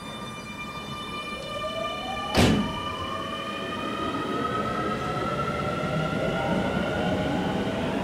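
Keio 9000 series electric train pulling out of the station: its inverter motor whine rises steadily in pitch as it accelerates, over running noise that grows louder. A single sharp thump about two and a half seconds in.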